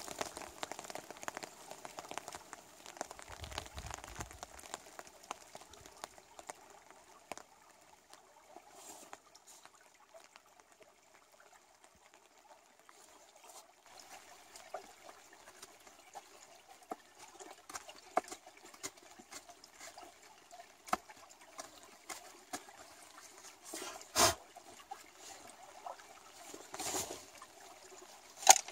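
Shallow rocky stream trickling steadily, with scattered light clicks and scrapes of a knife whittling a wooden stick and a couple of sharper knocks near the end.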